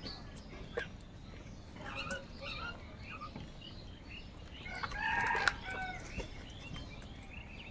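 House crows cawing, several short calls coming one after another, with the loudest and longest call about five seconds in.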